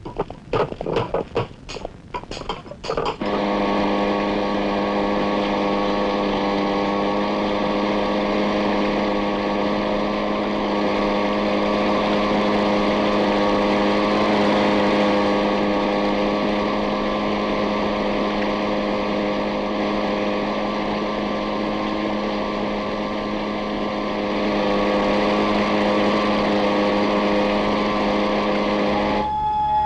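A few seconds of sharp knocks, then a steady low drone with many overtones that holds without change in pitch or loudness and cuts off abruptly near the end.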